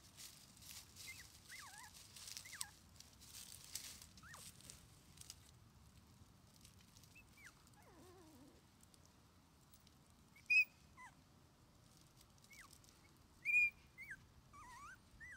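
Three-week-old Shiba Inu puppy whimpering in short, high-pitched whines that bend up and down, with two louder squeals about ten and thirteen seconds in. Scuffling and rustling in the first few seconds.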